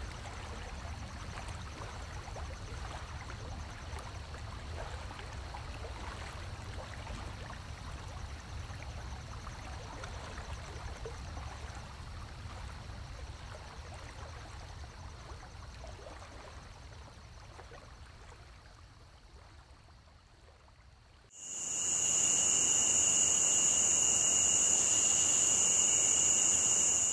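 Steady rushing of a flowing stream with a low rumble beneath, fading away over several seconds. About three-quarters of the way in, a loud, steady, high-pitched insect drone starts abruptly and holds two even tones, one high and one lower.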